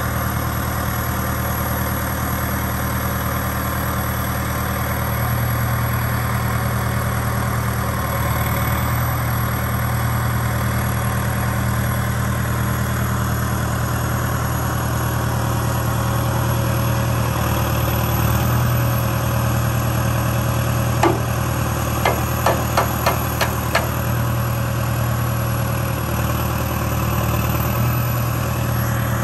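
Case CX90 tractor's diesel engine running steadily at low speed. A single sharp click comes about three-quarters of the way through, followed shortly by a quick run of five more clicks.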